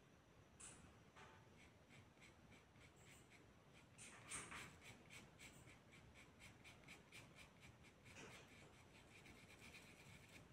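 Faint strokes of a paintbrush rubbing paint into cloth, quick and regular at about three a second.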